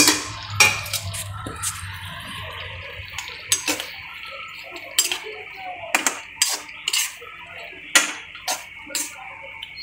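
Slotted steel spoon knocking and scraping against a kadhai as chopped tomatoes are pushed in and stirred through cooking ridge gourd: about a dozen irregular clinks over a steady hiss.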